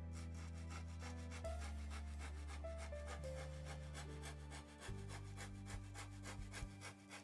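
A hand tool working wood in quick repeated strokes, scraping back and forth, over soft background music.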